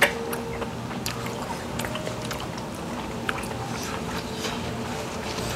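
Steady background hum of a room with a few faint short clicks.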